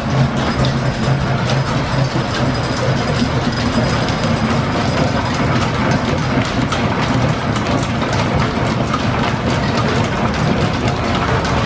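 Stationary steam engine driving a line-shaft machine shop, running steadily with a busy mechanical clatter and the whir of flat belts and pulleys.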